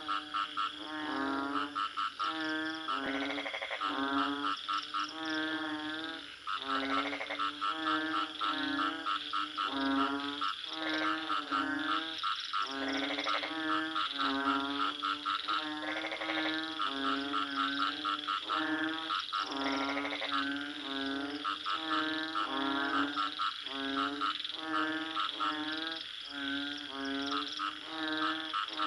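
Frogs croaking: a steady series of pitched croaks, about two a second, with a longer, higher call standing out every few seconds over a constant high-pitched background.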